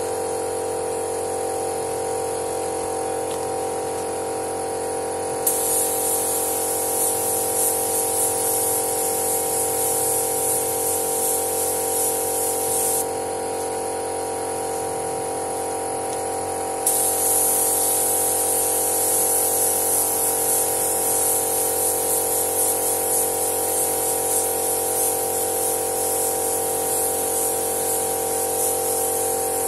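Pneumatic paint spray gun hissing as it sprays red paint onto a car bumper, in two long passes: the hiss cuts in sharply about five seconds in, stops about eight seconds later, and cuts in again a few seconds after. A steady hum of fixed tones runs underneath.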